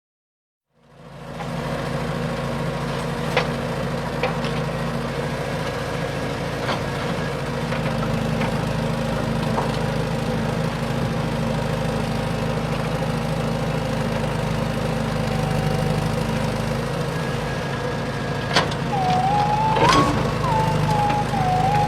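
A heavy-equipment engine running steadily at a constant low drone, fading in over the first second, with a few faint clicks. From about 19 seconds a higher, wavering whine joins it.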